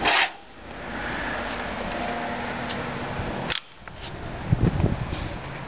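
Vintage Lakewood window box fan: a steady rush of air, then a click about three and a half seconds in, after which the sound drops away suddenly. A few dull knocks from handling the fan follow.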